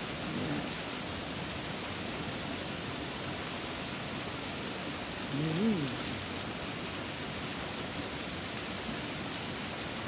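Steady hiss of meltwater and ice slush pouring down a frozen waterfall's chute. A short rising-and-falling voiced sound, like a brief hum, comes a little past halfway.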